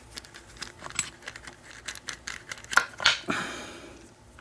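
Small metallic clicks and scrapes from hand tools working on an American 1100 padlock, with two louder clicks about three seconds in, each followed by a brief fading rattle.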